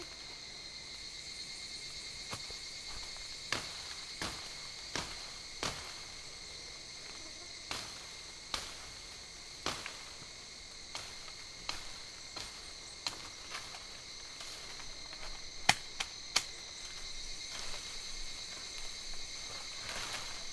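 Insects droning in steady high tones, crickets or cicadas, with irregular sharp knocks and cracks of wood about once a second as a branch is handled and worked; one crack about three-quarters of the way through is the loudest.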